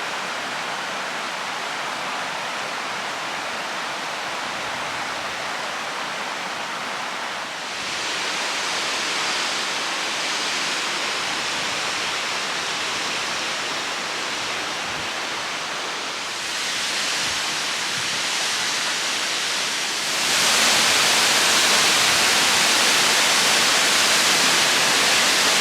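Aber Falls waterfall: a steady rush of falling water, growing louder in three steps, about a third of the way in, past halfway and near the end.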